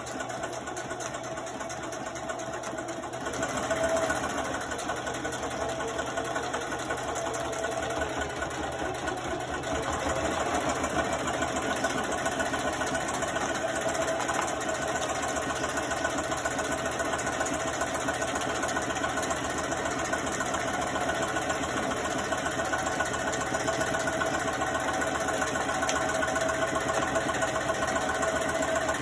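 Sewing machine running steadily, stitching a hem through a woven feed sack, its needle going in a fast even rhythm. It picks up speed and gets louder about ten seconds in.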